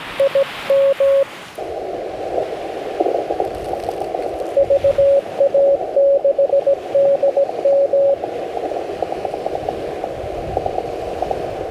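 Morse code on a Yaesu FT-891 on CW: a clean keyed sidetone for about the first second, then the receiver's narrow-filtered hiss opens. Another station's Morse signal comes in at a similar pitch from about four and a half to eight seconds in.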